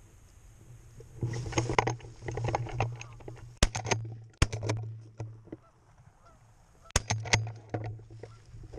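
Geese honking in bursts, with several sharp cracks a few seconds in and again near the end.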